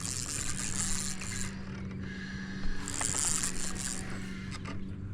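Fishing reel being cranked in two spells, a whirring, clicking retrieve, while a hooked catfish is reeled in.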